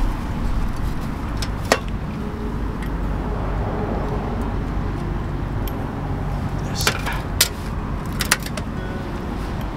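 Sharp metallic clicks from handling a hurricane oil lantern while it is lit: one about two seconds in and a quick cluster of three or four near the end, over a steady low rumble.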